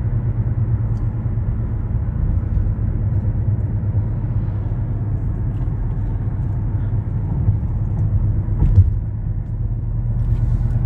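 Steady low rumble of a car driving along a road, heard from inside the cabin: tyre and engine noise, with one brief thump near the end.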